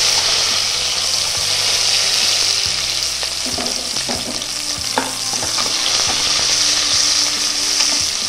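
Onions sizzling in hot oil in a pressure cooker after the mustard seeds have popped, being sautéed with a steady frying hiss. A few short scrapes and taps of the stirring spoon come through in the middle.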